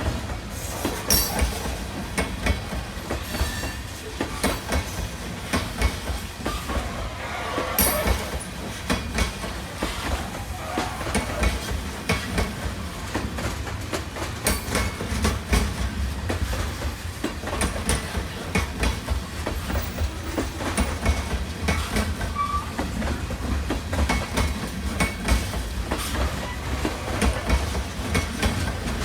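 Railcars rolling past with a steady low rumble, their wheels clicking and clattering over the rail joints again and again.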